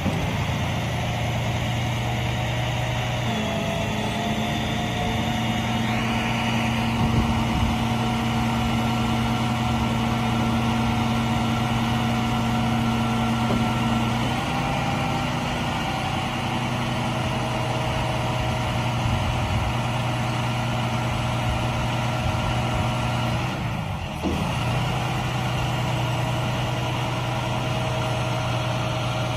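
Truck engine running steadily to drive the digger derrick's hydraulics, with a whine from the hydraulic system as the boom is raised. The whine shifts in pitch several times as the controls are worked, and the sound drops out briefly about 24 seconds in.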